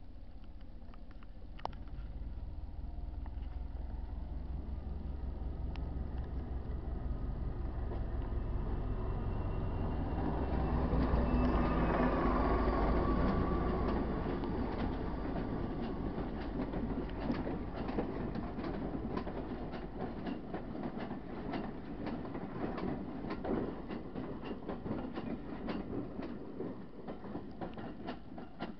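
Class 73 electro-diesel locomotive running on its diesel engine, drawing a train of coaches past. A deep engine rumble builds and is loudest as the locomotive goes by, then the coach wheels click steadily over rail joints as the train rolls away.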